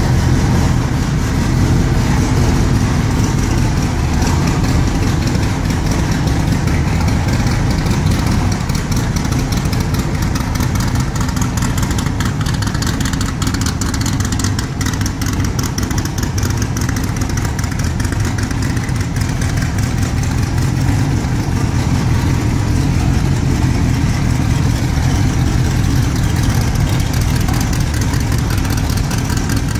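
V8 engine of a Superformance MKIII Cobra 427 SC replica idling steadily through its side-exit exhaust pipes, a deep, even burble.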